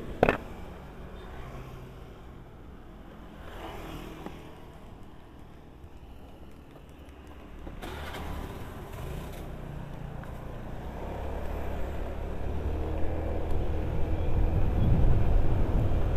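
Fuel-injected automatic scooter's engine running at low speed, then pulling away and riding along the road, growing steadily louder over the second half as speed builds. A brief sharp click comes right at the start.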